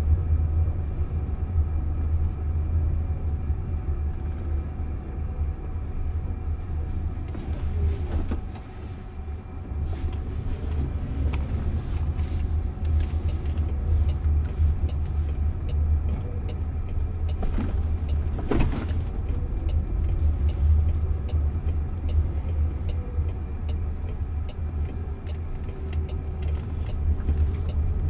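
Cabin noise inside a Jaguar I-Pace electric car driving slowly: a steady low rumble of tyres on the road, with a couple of faint clicks.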